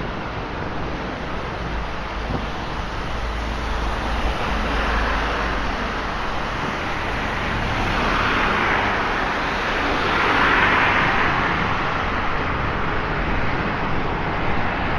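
Road traffic on a flooded, wet road: vehicles passing with tyres hissing through standing water. The hiss swells a few seconds in and again, more loudly, from about eight to eleven seconds.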